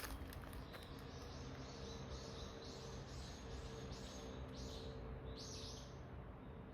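An animal in the forest calling: a run of short, high-pitched notes repeated about twice a second, starting about a second in and stopping shortly before the end.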